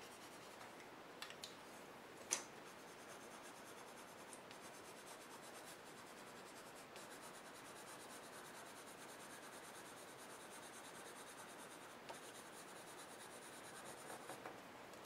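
Colored pencil lead stroking across drawing paper, a faint, steady scratching, with one sharp tap about two seconds in.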